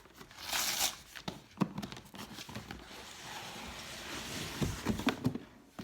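Cardboard packaging being handled and worked open: a brief scrape, scattered knocks, then a longer steady rustle and a few more knocks.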